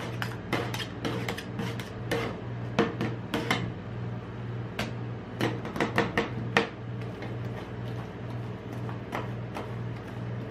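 Metal spatulas chopping and scraping a blackberry ice cream base on a frozen steel ice-cream-roll plate: rapid sharp clicks and taps of steel on steel. The strikes come thickest in the first few seconds and again around the middle, then thin out to lighter scraping.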